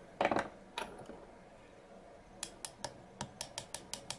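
Light taps on a 3/32-inch pin punch, driving a pin out of a Springfield XD pistol frame: a few scattered taps in the first second, then a quick, even run of about five taps a second from about halfway through.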